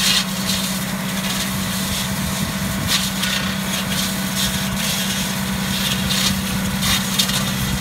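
Tractor engine running steadily under load, driving a mechanical olive pruner, with short bursts of hissing several times as the pruning head's blades cut through olive branches.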